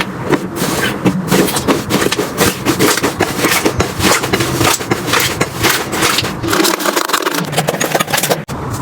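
Slime being squeezed and poked by hand: a dense, irregular run of wet crackles and pops, broken by a brief gap near the end.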